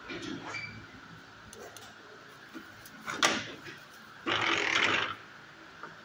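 A brief squeak right at the start, a sharp click about three seconds in, then a loud harsh rattle lasting nearly a second, over a faint steady hum.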